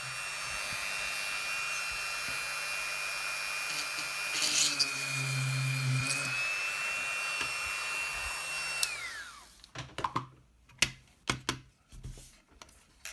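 Small electric drill running at a steady speed while drilling a pilot hole in a plastic transmitter housing, then spinning down with a falling whine about nine seconds in. A few light clicks and knocks follow.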